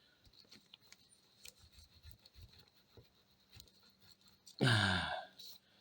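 Faint, scattered small clicks and light scraping of match heads being crushed into powder with a steel tube. A brief spoken word comes near the end.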